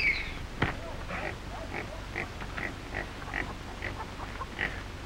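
A string of short, high animal calls repeating about two or three times a second, with a sharp click about half a second in.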